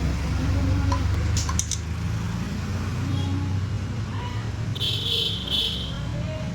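Bajaj Discover 100's single-cylinder four-stroke engine idling with a steady low rumble. Two short high-pitched beeps come about five seconds in.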